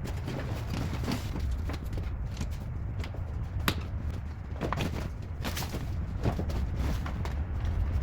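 Irregular taps, clicks and light scrapes of hands and detailing tools working on car interior trim, over a steady low rumble, with one sharper click a little before the middle.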